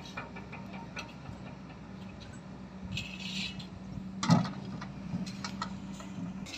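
Heavy machinery's diesel engine running steadily at a low pitch, with scattered clicks and clanks and one louder knock a little after four seconds in.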